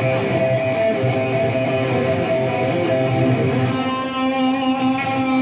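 Live electric guitar playing a song's intro: sustained, strummed chords, changing to a new chord with a held low note about two-thirds of the way through.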